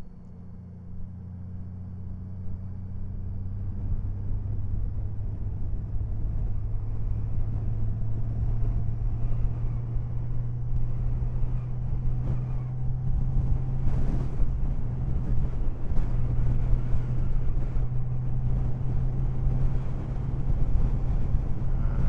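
Honda Valkyrie's flat-six engine pulling steadily as the motorcycle accelerates, its note rising slowly and getting louder, with wind rushing over the microphone as speed builds.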